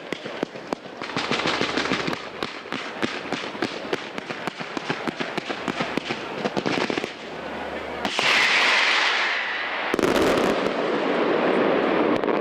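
Aerial fireworks display: rapid crackling reports for the first seven seconds or so, then a loud hissing rush about eight seconds in, and a heavy boom around ten seconds followed by a dense wash of noise.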